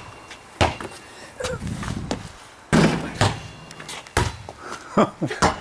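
A basketball bouncing and striking hard surfaces: several irregular, hard thuds, the loudest about halfway through.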